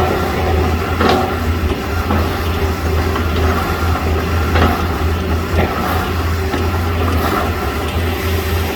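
Hitachi excavator's diesel engine running steadily under work, with a strong low hum, broken by a few sharp knocks and cracks, one about a second in and two more around the middle.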